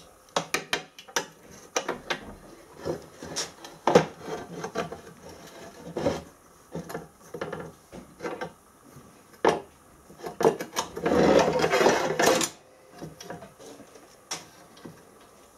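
Handling clatter of locking pliers and a copper backing bar being clamped against an aluminium oil sump: sharp metal clicks and knocks, with a longer stretch of scraping and rattling about two thirds of the way through.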